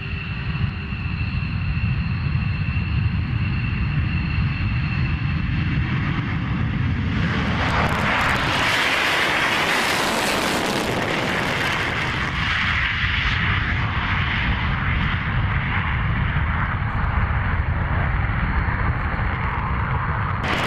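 Jet fighter engines running with a steady rumble and a faint whine. About seven seconds in the roar swells and becomes harsher, then eases off a little after about twelve seconds.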